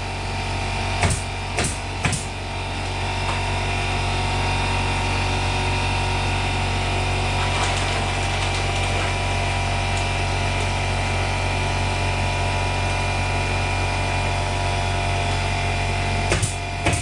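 Steady machine hum with a strong low drone and constant tones, with a few sharp clicks in the first couple of seconds and near the end.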